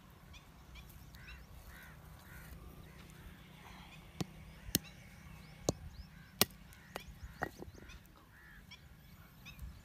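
A brick striking a hard object on a brick pavement: about six sharp knocks over three seconds, starting about four seconds in, as a seed is cracked open. Birds call in the background.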